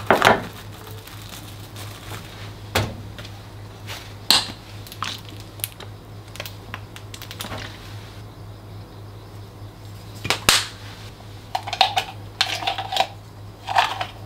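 Plastic cling film crinkling as it is stretched and pressed over a bowl, loudest right at the start. Scattered light clicks, taps and rustles of kitchen handling follow, with a cluster of short rustles near the end, all over a low steady hum.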